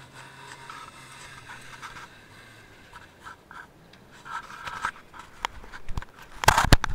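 Scratching, rubbing and knocking of handling noise on the camera's microphone, growing into loud crackles in the last half second. Under it at the start, the faint hum of the off-road trial vehicle's engine fades out about two and a half seconds in as it drives away.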